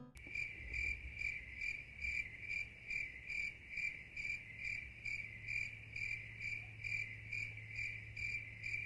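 A high chirp, like an insect's, repeating evenly about twice a second, over a faint low hum.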